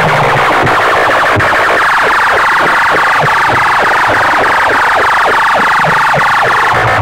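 Massed horn loudspeakers on a sound-competition rig blasting a harsh, distorted siren-like sound at full volume. Through the middle, quick falling swoops repeat about three times a second.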